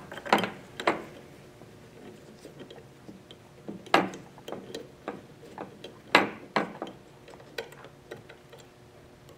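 Irregular light metal clicks and taps of screws and an Allen wrench while the motor's four mounting screws are started loosely by hand, with a few sharper clicks about four and six seconds in.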